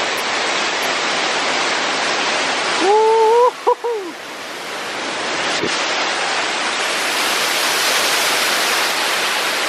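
Waterfall pouring, a steady loud rush of falling water. About three seconds in, a short voice-like sound with a rising pitch. A single click comes a little past the middle.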